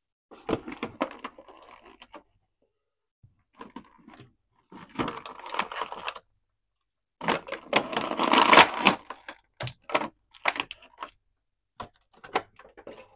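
An action figure being taken out of its cardboard box and plastic packaging: handling noise in several irregular bursts with sharp clicks and short gaps, loudest about seven to nine seconds in.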